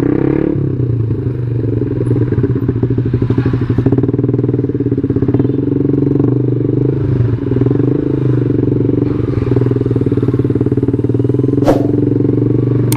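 Yamaha New Jupiter MX 135's single-cylinder four-stroke engine running steadily while the bike is ridden, with a sharp click near the end.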